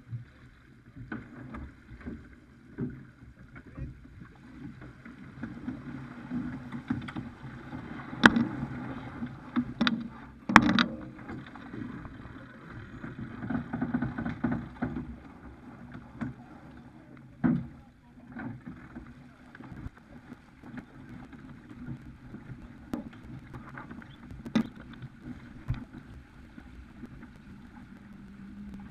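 Water and wind rushing past a Farr 280 sportsboat under sail, swelling louder now and then, with a few sharp knocks and clatters on deck.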